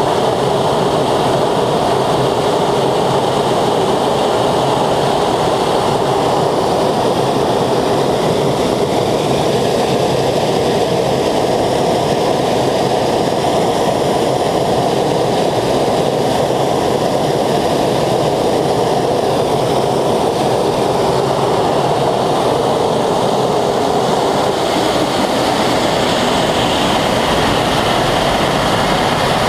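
Engine of a tractor-pulling machine running loud and steady under full power.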